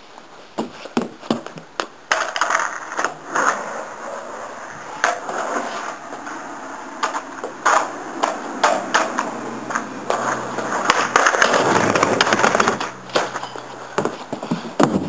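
Skateboard on concrete: urethane wheels rolling with a rough rumble, broken by many sharp clacks of the wooden deck and tail striking the ground as flat-ground tricks are tried. The rolling is loudest a little past the middle.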